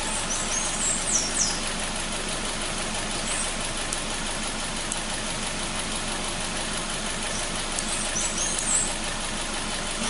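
A 2012 Hyundai Accent's engine idling steadily while it misfires: the number-three injector gets no signal and is dead. Short high-pitched squeaks come through twice, once near the start and once near the end.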